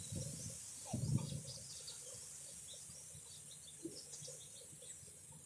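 Small birds chirping in short, scattered calls, with two low muffled thumps near the start and about a second in.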